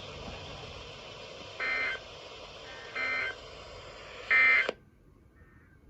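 Emergency Alert System end-of-message data bursts over a NOAA Weather Radio broadcast: three short, buzzy bursts about a second and a half apart over steady radio hiss, marking the end of the warning message. Right after the third burst the hiss cuts off suddenly as the transmission drops.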